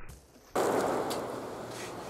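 A single shot from a Dan Wesson Supermag revolver in .357 Remington Maximum, with a sudden onset about half a second in and a decaying echo behind it.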